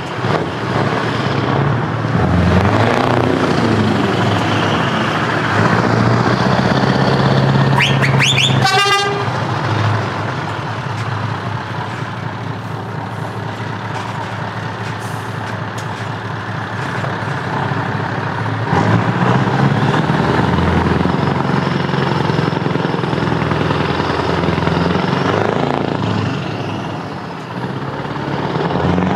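Scania T-series bonneted truck's diesel engine running loud as it pulls away and rolls past, swelling twice as it revs, with a short horn blast about eight and a half seconds in.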